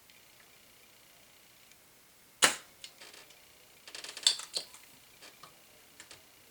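Spring-loaded solder sucker (desoldering pump) firing with one sharp snap, then a quick flurry of clicks and rattles as it is handled and re-cocked, with a few light clicks after.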